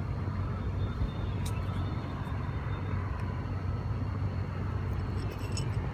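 Steady low rumble of a car being driven, road and engine noise with a few faint ticks.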